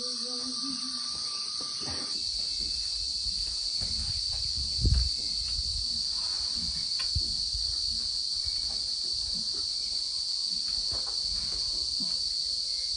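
Insects, likely crickets, keep up a steady, shrill, high-pitched chorus. A sung melody fades out in the first second, and a single low thud comes about five seconds in.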